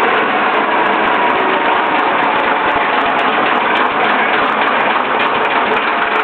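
Leyland National single-decker bus's freshly fitted replacement diesel engine running steadily.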